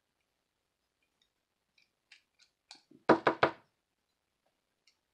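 Small clicks of a tiny screwdriver and a wristwatch being handled while the screws are taken out of the watch's stainless steel back. About three seconds in come three quick, louder knocks close together.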